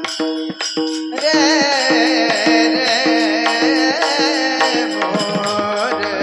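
Devotional kirtan music: a singer holds a long, high, wavering note over a steady accompaniment with evenly repeated drum strokes.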